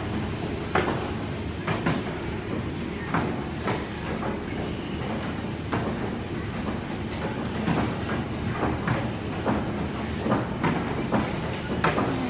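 Conveyor printing machine with a mesh belt running, a steady low rumble with irregular clicks and knocks over it.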